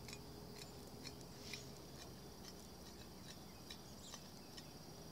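Faint outdoor insect drone, a steady high buzz, with scattered small ticks over it.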